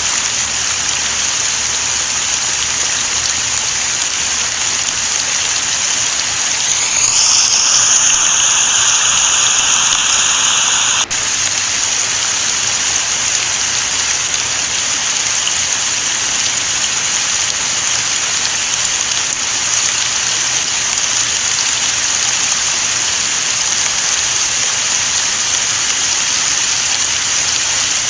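Steady rain falling, an even high hiss. About a quarter of the way in, a high pitched tone with overtones rises, holds for a few seconds over the rain, then cuts off suddenly.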